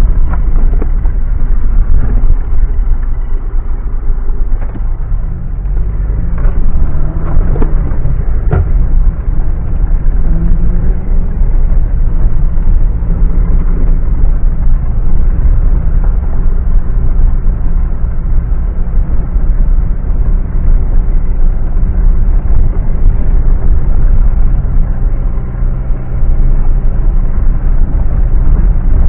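Mitsubishi Pajero driving off-road, its engine running steadily under load with a heavy low rumble. The engine pitch rises a couple of times between about six and eleven seconds in, and a few sharp knocks and clatters come around seven to eight and a half seconds in.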